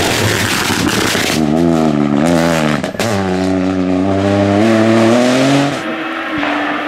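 Peugeot 208 Rally4's turbocharged three-cylinder engine and tyres passing close at speed. The engine then revs up and down, gives a sharp crack at a gear change about three seconds in, and pulls away with rising revs. Near the end it gives way to a fainter, steady engine note.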